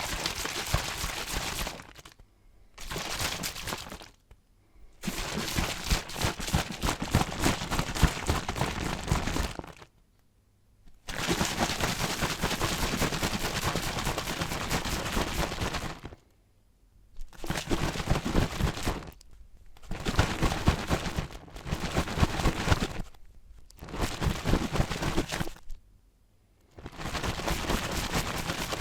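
Water sloshing inside a water bottle as it is shaken hard. It comes in about nine bouts, from a second to about five seconds long, with short pauses between them.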